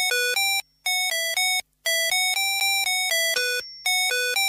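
Intro music: a quick melody of short, bright electronic notes, about four or five a second, in phrases separated by brief pauses.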